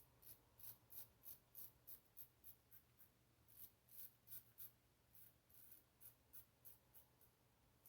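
Faint, quick scratchy strokes of an Above the Tie R1 safety razor with a Treet Platinum blade cutting stubble against the grain, about three short strokes a second with a couple of brief pauses.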